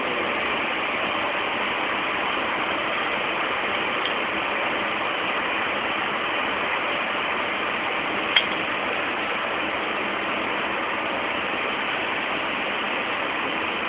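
Steady machinery noise running at an even level, with one sharp click about eight seconds in.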